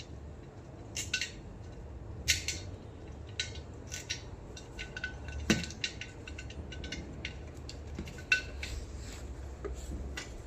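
Metal hand tools and parts clinking and tapping together in irregular sharp clicks, some ringing briefly, with a heavier knock about halfway through.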